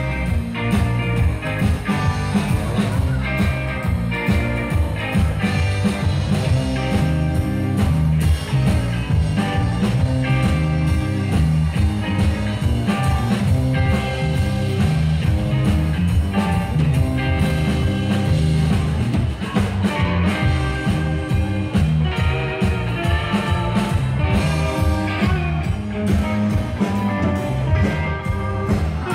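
Live rock band playing: electric guitars, electric bass and drum kit.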